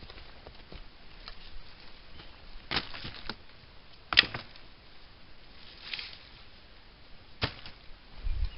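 Dry birch bark and forest debris being handled and laid down: scattered crisp crackles and rustles, with a few louder snaps a second or two apart.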